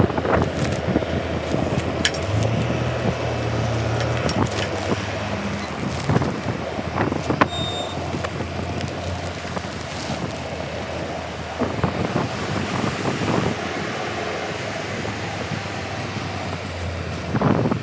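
Tractor engine running steadily under wind buffeting the microphone, with a plastic big bag rustling as its loops are handled on the loader hook.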